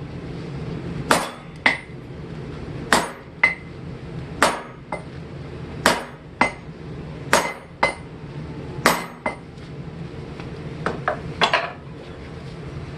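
Hand hammer striking hot steel on an anvil, forging a hammer head flat: each heavy blow is followed by a lighter second strike, in pairs about every one and a half seconds, ending with a quick run of lighter blows.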